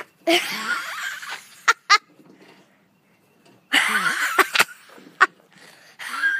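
A person laughing in two breathy bursts, the second about three and a half seconds after the first, with a few short sharp sounds in between.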